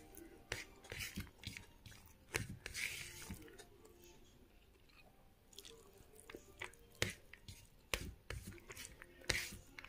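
Bare fingers mixing and scooping cooked rice and vegetables on a plate, making irregular sharp clicks and soft wet squishing, with chewing mixed in.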